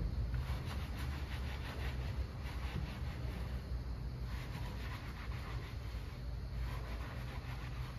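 Bristle brush scrubbing a wet, soapy tyre and wheel in quick back-and-forth strokes, with short pauses about four and six seconds in, over a steady low hum.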